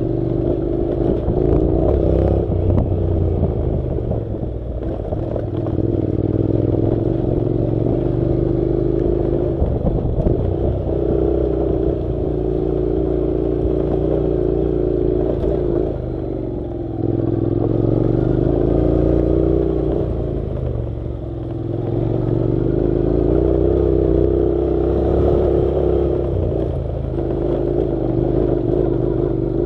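Honda NC700's 670 cc parallel-twin engine running under load on a dirt road, with some clatter. The engine note dips briefly three times, about halfway through, two-thirds through and near the end, as the throttle eases, then climbs again.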